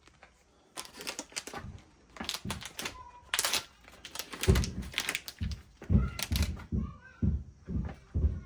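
Irregular run of sharp clicks, taps and knocks as small hard parts and tools are handled, some with a dull thud, while the outboard's water-pump impeller is being changed.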